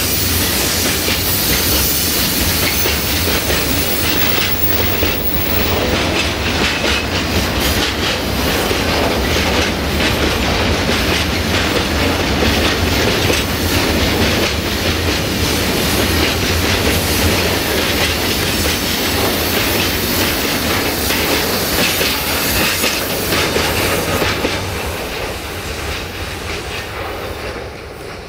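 Freight train wagons rolling along the rails, a steady rumble with the clickety-clack of wheels over rail joints, dying away near the end.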